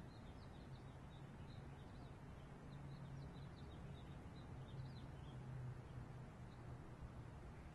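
Faint small birds chirping in quick short notes, thinning out about five seconds in, over a low steady hum.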